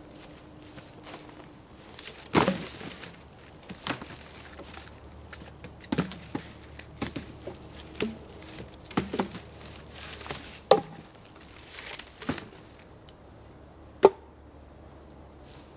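Irregular sharp wooden knocks and cracks as sticks are chopped with a hatchet and laid on a pile of cut wood, the sharpest crack near the end.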